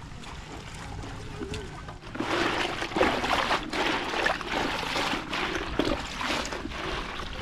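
Water being poured, trickling and splashing, getting louder and busier about two seconds in.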